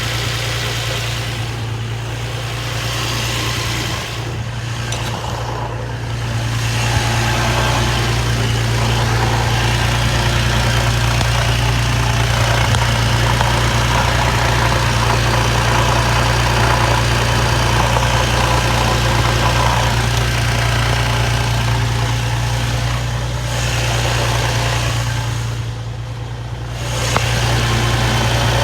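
Infiniti G35 engine idling with a chattering rattle and an occasional clunk from underneath the car, which the owner suspects is a failing throw-out bearing. It gets louder about seven seconds in.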